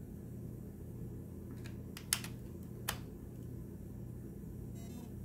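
A few short sharp clicks over a steady low hum, the loudest about two seconds in and another about a second later: fingers on the buttons of a comma two device and its USB cable being handled while it is put into Fastboot mode.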